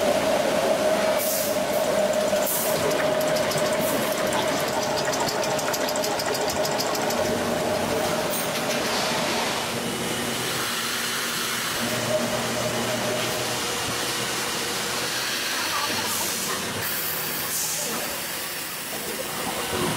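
Tyre-factory machinery running: a steady mechanical din with hiss and scattered clicks, and a steady tone that stops about nine seconds in.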